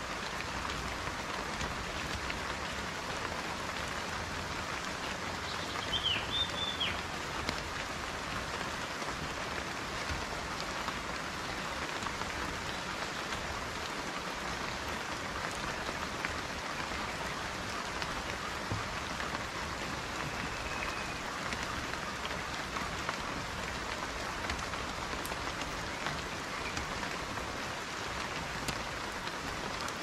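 Steady rain falling, an even patter that does not change, with a brief high chirp about six seconds in.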